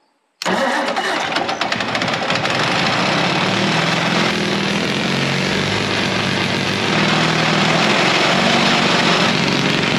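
An old Caterpillar D6 crawler's engine starts abruptly about half a second in and keeps running steadily, getting a little louder about two-thirds of the way through.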